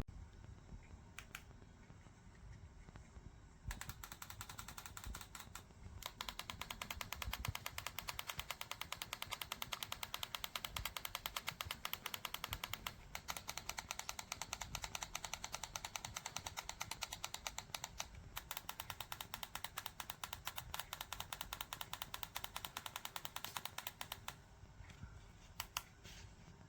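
Rapid, even mechanical ticking, many clicks a second, starting about four seconds in with a few short breaks and stopping near the end.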